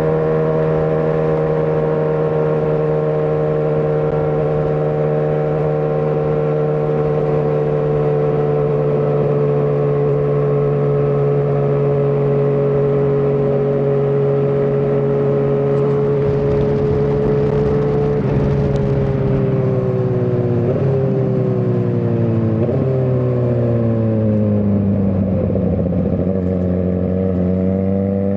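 Suzuki GSX-R1000R inline-four engine holding steady revs at cruise. After about 18 seconds the revs fall as the bike slows, with three quick upward jumps in engine note as it is shifted down, then the revs climb again near the end as it accelerates.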